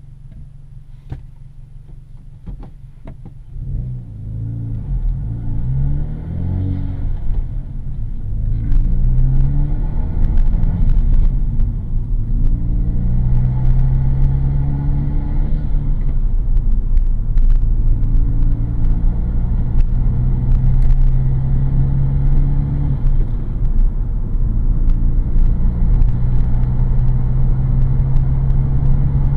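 Hyundai Veloster Turbo's 1.6-litre turbocharged four-cylinder, breathing through a Solo V-Mach 2N1 cat-back exhaust with the resonator in place, heard from inside the cabin. It idles at first, then about four seconds in the car pulls away and the engine note rises through several gear shifts before settling into a steady cruise.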